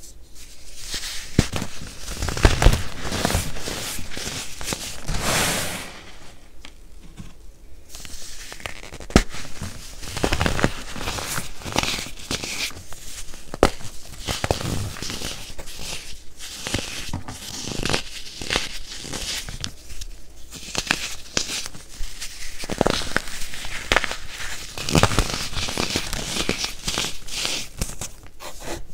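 Pressed baking soda being crushed and crumbled by hand, a dense irregular run of crunching crackles and snaps that eases briefly a few seconds in.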